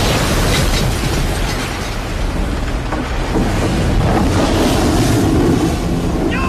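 Storm at sea on a film soundtrack: strong wind and driving rain lashing a shrimp boat, a dense rush of noise with a few sharp cracks.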